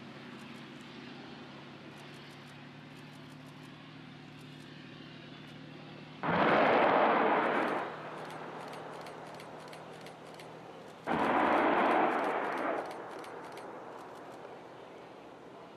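Ka-52 attack helicopter firing two salvos of unguided rockets about five seconds apart, each a sudden loud rushing roar lasting about a second and a half, over the steady drone of the helicopter in flight.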